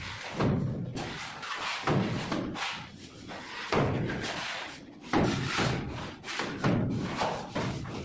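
Cement-and-sand mortar being thrown onto a wall with a plastic shovel: a series of wet thuds, about one a second.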